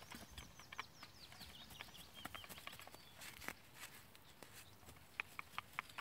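Faint scraping and clicking of a small hand cultivator fork worked through soil, with a few sharp clicks close together near the end. A bird sings a quick run of falling notes during the first two seconds.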